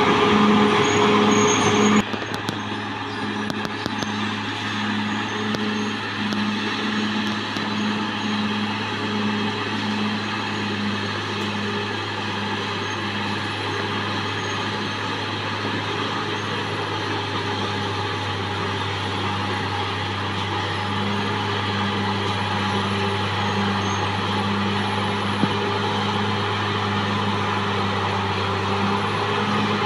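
Caterpillar D6R XL bulldozer's diesel engine running steadily under work. It is louder for the first two seconds, drops suddenly to a lower level, then holds steady, slowly rising a little toward the end.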